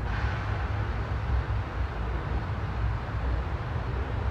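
Steady outdoor background noise: a low, unsteady rumble with an even hiss over it.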